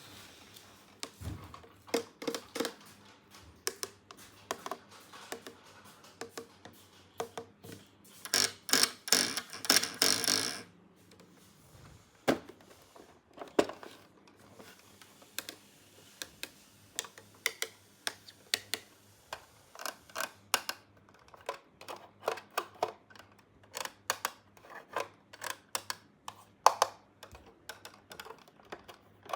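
Small plastic toy pieces from a miniature playset clicking and tapping as they are handled, in quick irregular knocks, with about two seconds of dense rustling about a third of the way in.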